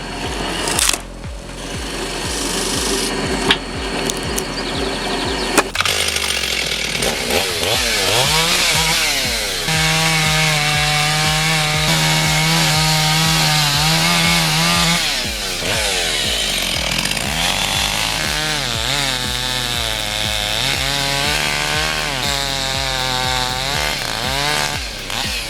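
Knocks and cracks of wood for the first few seconds. Then a chainsaw engine revs up about six seconds in and runs at high speed cutting wood, its pitch holding steady for several seconds, then wavering and dipping as the cut goes on.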